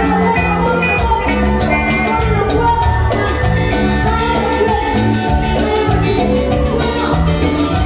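Peruvian cumbia band music with a bass line and a steady percussion beat.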